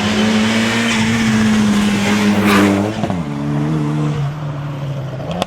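Rally car engine running at high revs, a steady note that drops sharply in pitch about three seconds in and then holds lower.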